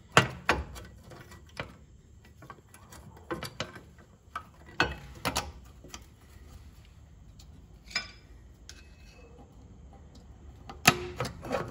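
Irregular sharp metallic clicks and clinks of parking brake shoe hardware on a 2015 Ram 1500's rear brake as a shoe spring and its clip are worked into place by hand and with long needle-nose pliers. The loudest clicks come just after the start and again near the end.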